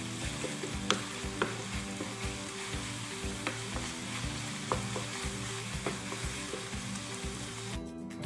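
Diced chicken breast and sliced onion sautéing in a nonstick frying pan: a steady sizzle, with a wooden spatula scraping and clacking against the pan about once a second as the mixture is stirred. The sizzle breaks off just before the end.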